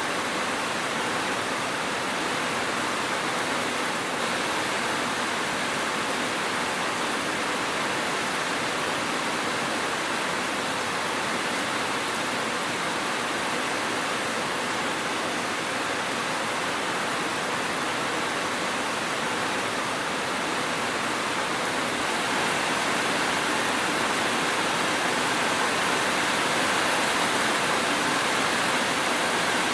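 Steady rain, an even hiss with no thunder or separate drops standing out, growing slightly louder about two-thirds of the way through.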